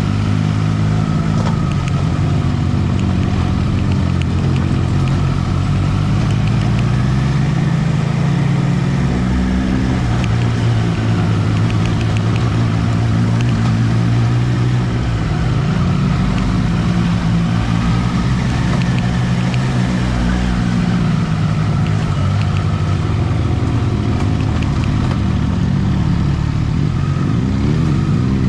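Triumph Trident 660's inline three-cylinder engine running at low speed on a rough stony track, its pitch rising and falling with the throttle.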